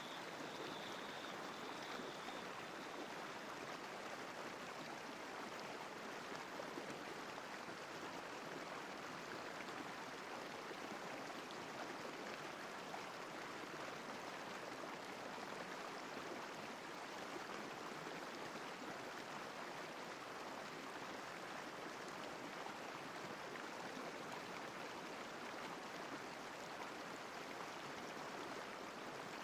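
Flowing stream water rushing with a steady, even sound that does not change.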